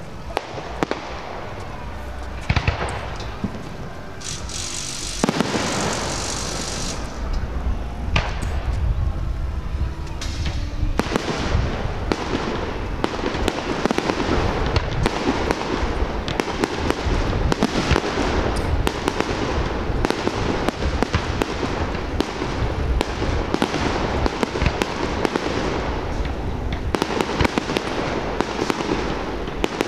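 Fireworks display: repeated bangs from shell bursts, with a hissing crackle about six seconds in, then a rapid, dense run of bangs from about eleven seconds in.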